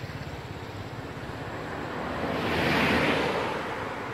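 A vehicle passing by: a rush of tyre and road noise that swells and fades, loudest about three seconds in, over a steady low hum.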